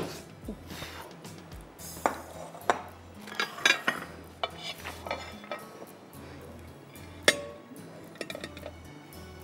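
Dishes and utensils clinking and knocking as a glass bowl, a plate and a pan are handled on a stone kitchen counter, with soft background music underneath. The sharpest knock comes about seven seconds in.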